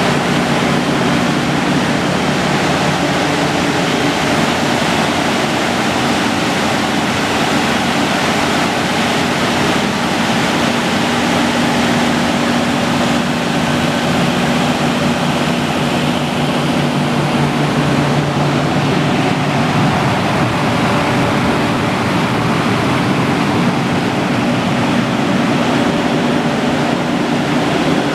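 760 kW Kohler diesel generator set running steadily, a loud, even engine and cooling-fan noise with a constant low hum.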